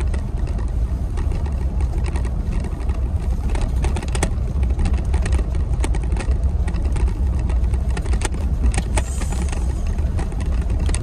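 Steady low rumble of a pickup truck driving, heard inside the cab: engine and tyre noise from the road, with scattered light knocks and rattles.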